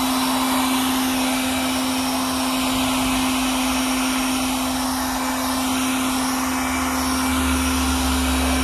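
Einhell TE-CB 18/180 Li cordless battery air blower running steadily: a loud rush of air with a steady hum from its fan motor, blowing water off a car's paintwork.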